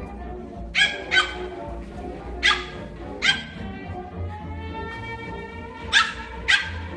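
A dog barking six times in short sharp barks, in two pairs and two singles, over background music with held notes.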